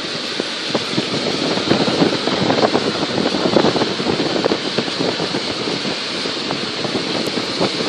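Road and wind noise inside a moving car, with many small knocks and rattles that are busiest in the first few seconds.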